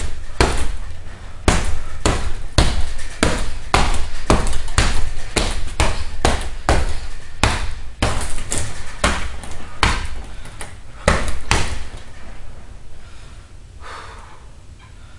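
Fists landing on a hanging heavy punching bag, a long flurry of hard thuds about two to three a second that stops about twelve seconds in.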